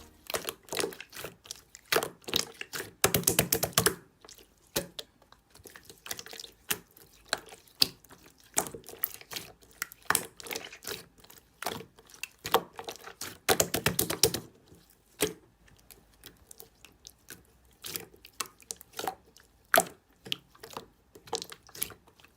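Slime being squeezed, poked and pressed by hand, giving an uneven run of sharp clicks and small wet pops, with thicker bursts of quick crackling about three seconds in and again around thirteen seconds in.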